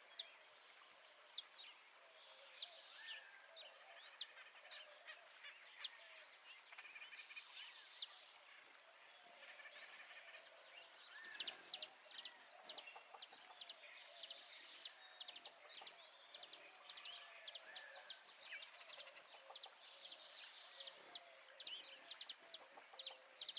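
Outdoor nature ambience: sparse, sharp bird chirps and faint warbling. About eleven seconds in, a loud, steady, very high-pitched insect trill starts, pulsing rapidly, with the bird chirps continuing over it.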